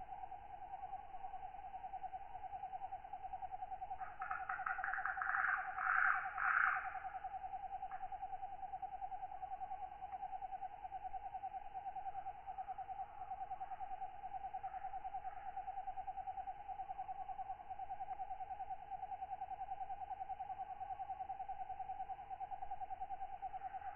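Tropical night insect chorus: a steady, fast-pulsing trill throughout, with a louder, raspy katydid call about four to seven seconds in and fainter calls later.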